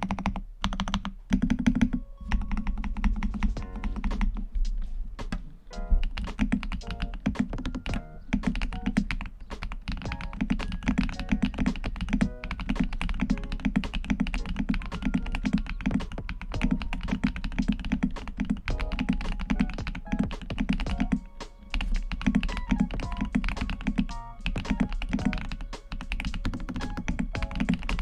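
Continuous fast typing on a mechanical keyboard, a dense run of deep, clacky keystrokes, with lofi background music.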